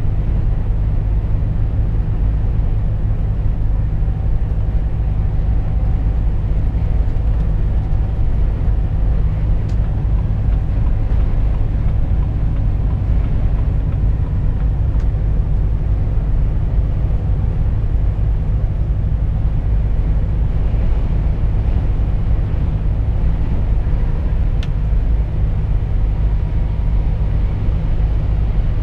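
Volvo FH 460 truck's 13-litre six-cylinder diesel engine running steadily at cruising speed, heard from inside the cab as a constant low drone with road noise.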